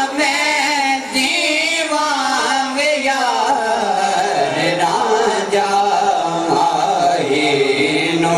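A singer performing a Punjabi Sufi kalam, drawing out long, wavering melismatic notes. The pitch sinks about halfway through and climbs again near the end.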